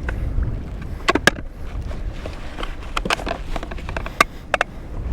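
Sharp knocks and clacks on a plastic kayak as a freshly landed lingcod and gear are handled to measure the fish, with a few strikes about a second in and again towards the end, over a steady low rumble.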